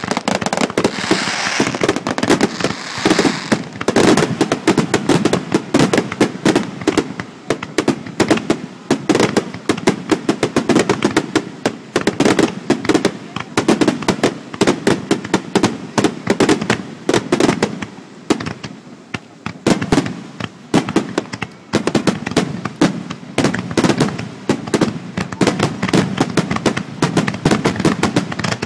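Aerial fireworks shells bursting in a rapid, continuous barrage of bangs, several a second.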